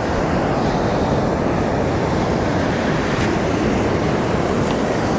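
Steady wash of ocean surf on the beach, mixed with wind rumbling on the microphone.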